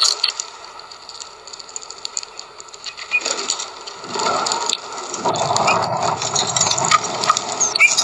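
Birds at a seed feeder: a sudden flap or knock at the start, then a rough rustling noise from about four seconds in, with a few short high chirps.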